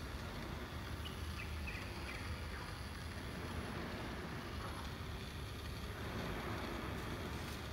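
Steady low outdoor background rumble, with a few faint high chirps about a second in and a thin steady high tone.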